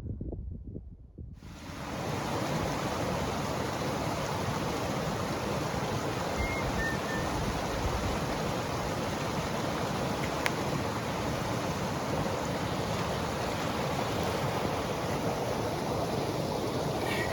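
Steady rush of a fast-flowing mountain creek, starting abruptly about a second and a half in, with a couple of brief high chirps over it.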